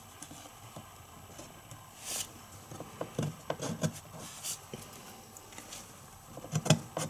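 Vinyl letter stickers being picked and peeled off a metal bar with a fingernail: faint scratchy rubs and small ticks, with a brief peeling rasp about two seconds in.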